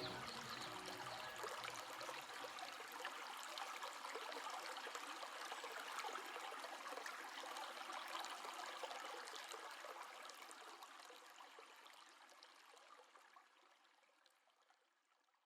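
Waterfall: a steady rush of falling water that fades out gradually over the last five seconds or so.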